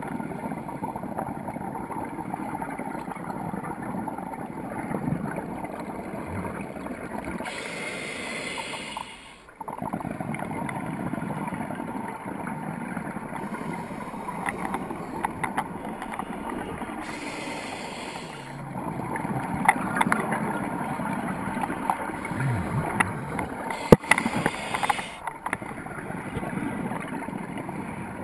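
Underwater sound through a GoPro housing: a steady muffled rush scattered with small clicks. Three hissing bursts of scuba regulator exhaust bubbles come at intervals of roughly eight seconds, each lasting a second or two.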